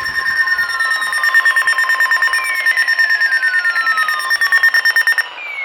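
Weather radio alert alarm: steady electronic alert tones with a rapid pulsing beep over them, and a falling-pitch siren-like sweep that repeats about every two and a half seconds. The steady tones and the beeping cut off shortly before the end, as a new sweep begins.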